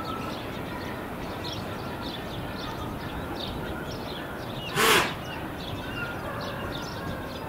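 Small birds chirping over a steady outdoor background rush, with one short, loud burst of noise about five seconds in.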